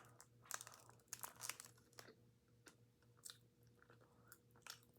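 Faint chewing of soft cake: scattered quiet mouth clicks and smacks, several in the first two seconds and a couple more later.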